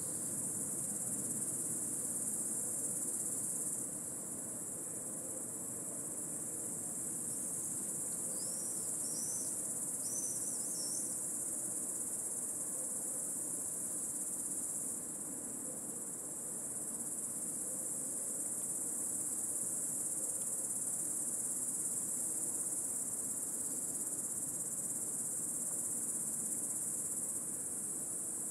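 Cicadas in an intense, unbroken high-pitched chorus, dipping slightly in level for a stretch in the first half. A few short rising chirps sound about eight to eleven seconds in.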